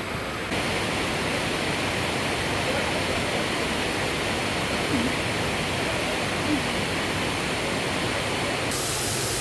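Waterfall rushing: a steady, even noise of falling water filling the sound, with faint brief voices about halfway through.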